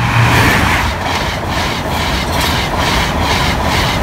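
InterCity 125 high-speed train passing at speed: the rush of the Class 43 diesel power car at the start, then the Mark 3 coaches going by with a rapid, even clatter of wheels, about four beats a second, over a steady low rumble.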